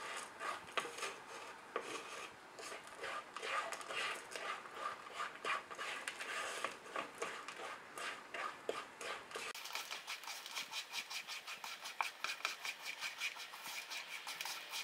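Wooden spatula scraping and stirring coarse sugar in a non-stick pan, a gritty rasp stroke after stroke. The sugar is just starting to melt, and the bottom is being scraped so it does not stick and burn. A little past halfway the strokes become quicker and more even.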